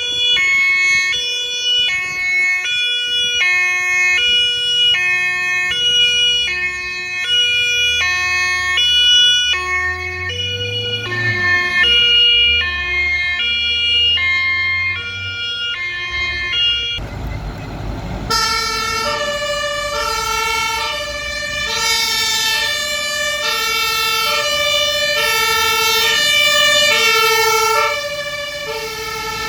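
Fire engines' German two-tone emergency horns (Martinshorn) sounding, alternating a low and a high note, about one pair every 1.2 seconds, with a vehicle engine rumbling underneath. A little past halfway a short burst of noise breaks in, and a louder two-tone horn at a slightly different pitch takes over.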